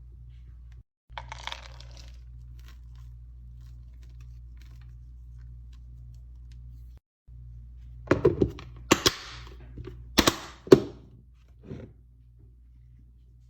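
A few sharp knocks and clatters, several in quick succession, over a steady low hum; a brief scraping rustle comes about a second in.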